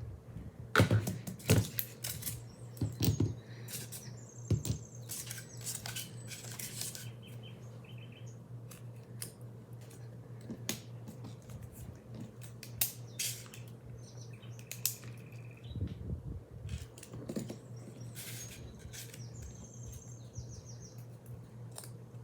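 Metal snap-button charms clicking and clinking as they are handled, with a quick cluster of sharp clicks in the first few seconds and scattered single clicks after.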